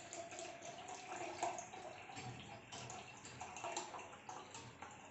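Water running from a kitchen tap, with scattered light clicks and clinks.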